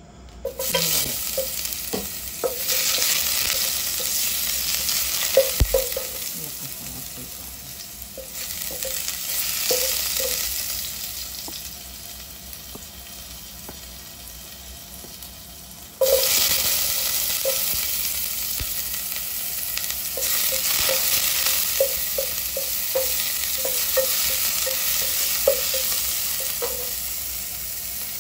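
Ginger and onion slices sizzling and frying in hot oil in a pot. The sizzle starts suddenly as the first pieces go in, fades somewhat, then jumps louder about halfway through as more is added. A wooden spatula stirs them, with many light knocks and scrapes against the pot.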